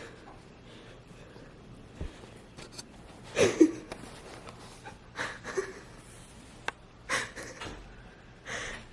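Short, breathy vocal sounds in about four separate bursts, the loudest a little over three seconds in, with quiet between them.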